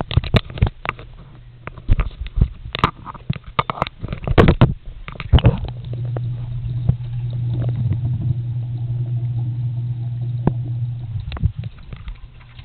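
A series of sharp clicks and knocks, then a Just Like Home microwave oven running with a steady low hum for about six seconds that stops abruptly near the end.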